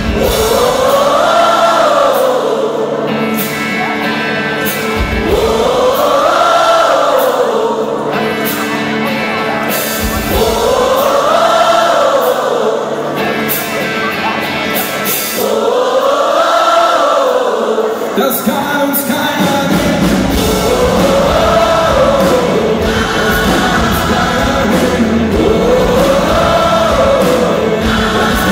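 Gospel choir singing live with a rock band, repeating one short rising-and-falling phrase about every five seconds. The bass fills in fully about twenty seconds in.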